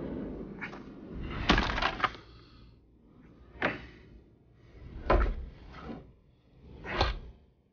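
Heavy wooden planks being slid and knocked into place on wooden boards: a series of hollow wooden knocks, about one every second or two, some with a short scrape just before the hit.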